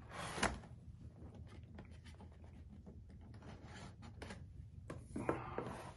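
Box cutter blade scraping and slicing through a cardboard box: faint rasping strokes with scattered light clicks, a sharper knock about half a second in, and a few louder strokes near the end.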